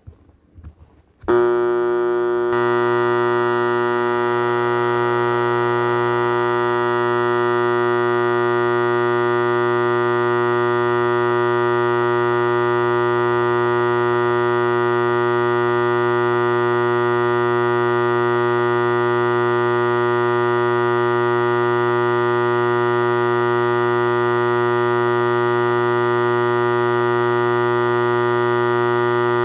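Simplex 4037-1 vintage fire alarm horn, its electromagnet driven from 12 volts AC, switching on about a second in and then sounding one continuous, steady blaring tone.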